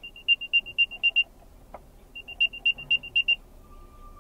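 Apple AirTag playing its find-my sound from its built-in speaker: rapid high chirping beeps, about eight a second, in two runs of just over a second each with a pause of about a second between. Pretty loud.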